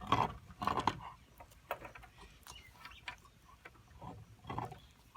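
Puppy growling in a few short bursts, two near the start and two near the end, with faint clicks between.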